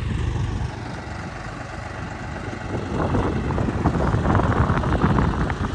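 Tractor engine running under load as it pulls a bed planter, a low rumble of rapid exhaust pulses. About halfway through it grows louder, with sharper crackles.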